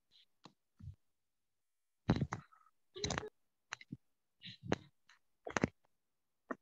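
Irregular clicks and knocks, about a dozen of them, from a computer mouse being handled and clicked.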